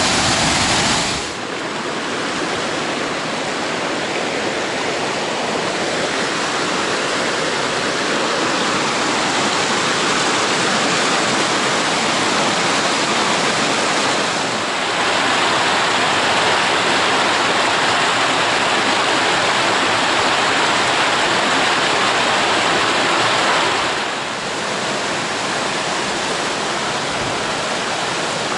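Steady rush of falling water: a large waterfall for the first second or so, then a small mountain creek cascading over rocks, the tone of the rush shifting slightly twice along the way.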